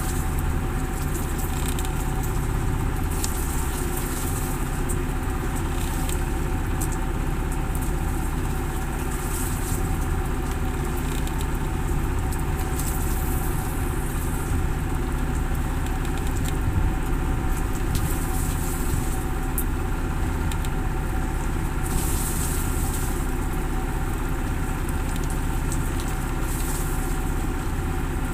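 Engine running steadily on a fishing boat: a continuous low hum.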